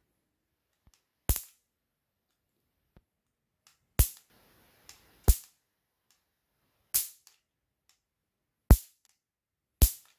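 Electric mosquito racket's charged mesh grid arcing against a metal pin: six sharp, loud snaps at irregular intervals, with a brief crackle after the second one.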